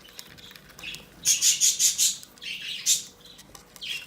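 Budgies in a nest box give harsh, raspy calls. About a second in comes a rapid run of about five, then a few shorter calls.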